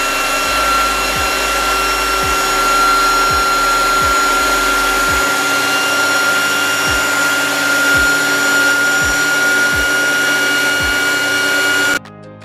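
ZVS induction heater running while it melts gold from processor-pin scrap in a crucible inside its coil: a steady high-pitched whine over a constant hiss, with soft low ticks about once a second. Near the end it cuts off suddenly and quiet guitar music takes over.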